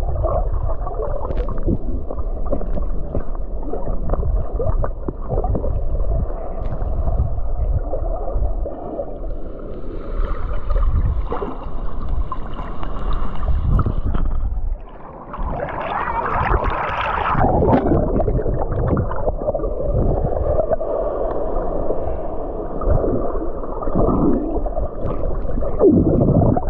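Muffled rush and gurgle of churning seawater, loud and continuous, dipping briefly about fifteen seconds in before building again.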